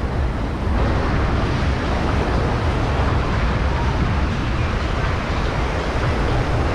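Wind buffeting the microphone over a steady rush of ocean surf.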